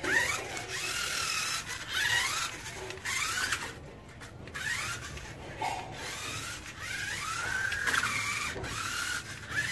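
Toy RC crawler buggy's small electric motor and gearbox whining while driving, rising in pitch several times as the throttle is pushed.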